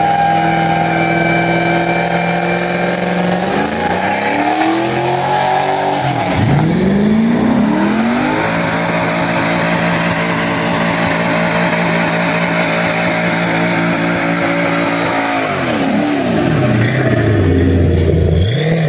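Car engine revving hard and held at high revs while the rear tyres spin in a burnout, the tyres squealing against the pavement. The revs drop and climb again about a third of the way in and again near the end.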